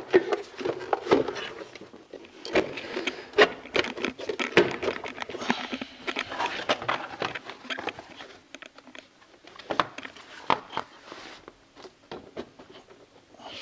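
Hard plastic parts of a Mercedes A200 CDI's air filter housing being fitted back into the engine bay by hand: a string of irregular sharp clicks and knocks with scraping between them, busier in the first half and sparser towards the end.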